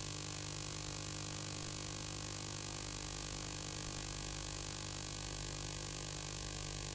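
Steady electrical hum with a constant hiss, unchanging throughout; no handling or brushing sounds stand out.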